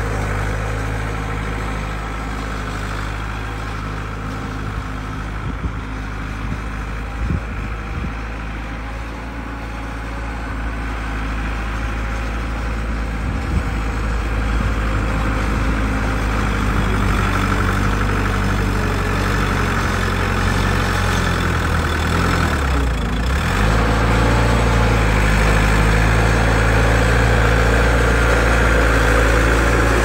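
Bobcat M970 skid-steer loader's engine running steadily while it works a snowy driveway. The engine speed dips briefly a little past the middle, then the engine gets louder as the machine comes close near the end.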